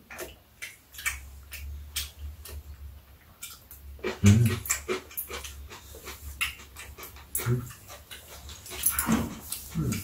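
Eating at the table: metal chopsticks and a spoon clicking against bowls, with chewing and slurping of rice cake soup. A brief louder low sound about four seconds in.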